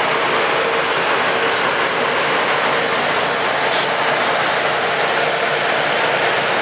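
Loram RG314 rail grinder train passing close by, a loud, steady noise of its engines and running gear with no let-up.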